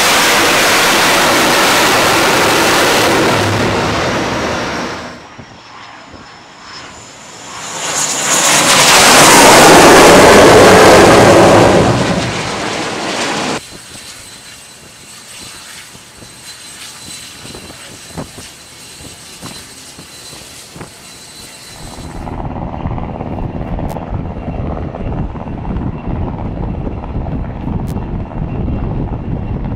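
Jet engine noise of an X-47B drone landing on an aircraft carrier deck: a loud rushing roar for the first few seconds, then after a short lull a second, louder spell that fades before the halfway mark. After a quieter stretch with a few faint clicks, a steady lower rumble of aircraft in the distance carries on for the last third.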